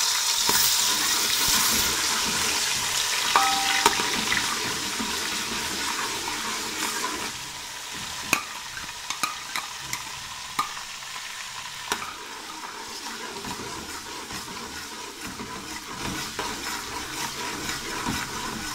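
Cumin, garam masala and ginger-garlic sizzling as they fry in hot ghee in a metal pot, with a spoon stirring and knocking against the pot now and then. The sizzle is loudest at first and dies down after about seven seconds.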